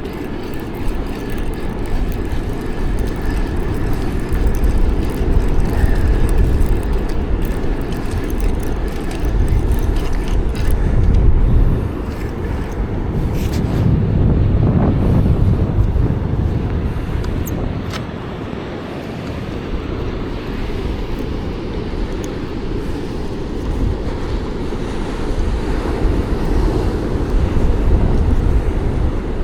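Wind and ocean surf rumbling on the microphone, loud and uneven, swelling and easing, with a few faint clicks about seven to eleven seconds in.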